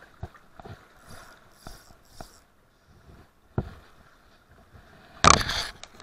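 Close handling noise while fly line is stripped in by hand: light scattered knocks and rustles, a sharper knock about three and a half seconds in, and a loud rustling scrape near the end.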